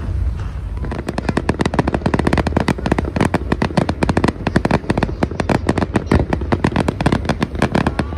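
Fireworks going off in a rapid barrage: a few separate bangs, then from about a second in a dense string of sharp cracks, many a second, over a steady low rumble.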